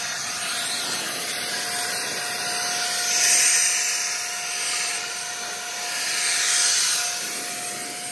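EGO Power+ cordless backpack leaf blower running: a steady rush of air with a thin steady whine from the battery-powered fan, swelling louder twice as the air stream is pushed harder or swung around.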